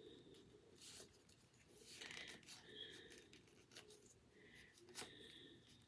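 Near silence with faint rustling and light scrapes: small doll jeans being worked onto a plastic fashion doll by hand.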